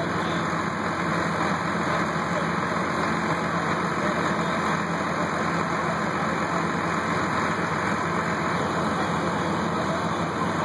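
Fire truck engines running steadily: a continuous low drone with a steady hum under it, from apparatus working the fire.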